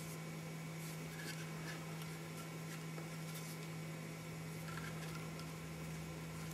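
Faint rustles and light taps of a cloth seamstress tape measure being handled and run along a goat horn, over a steady low hum.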